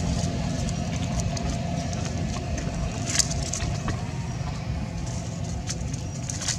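Steady low rumble with a faint steady hum, and a few sharp clicks, the loudest about three seconds in.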